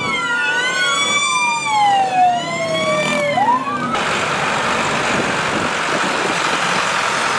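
Police car sirens wailing, at least two overlapping, with tones rising and falling. About four seconds in the sound cuts to a steady noisy din as a procession of tractors passes.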